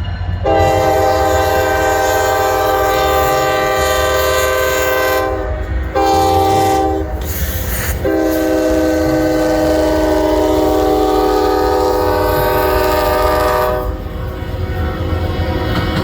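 Locomotive air horn sounding a chord of several tones: a long blast, a short one, then after a brief gap another long blast, the warning sequence for a road grade crossing. A steady low rumble of the train runs underneath.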